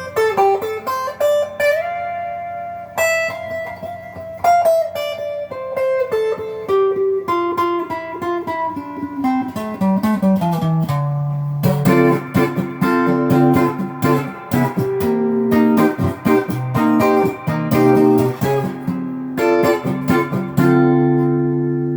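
Stock Gearit Telecaster-style electric guitar played on its neck soap-bar P90 pickup through an amp's clean channel. Single-note lines step and slide downward in pitch over the first half, then chords take over, ending on a chord left ringing.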